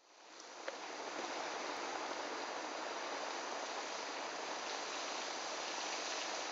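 Steady rushing hiss that fades in over the first second, then holds even, with a faint high whine running through it.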